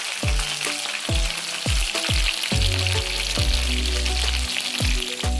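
Chicken pieces frying in hot oil in a saucepan, a steady dense sizzle with crackling, over background music with a steady bass beat.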